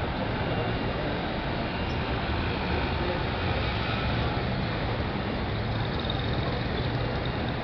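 Street traffic, with old classic cars and taxis driving past and a steady low engine hum under the general city noise.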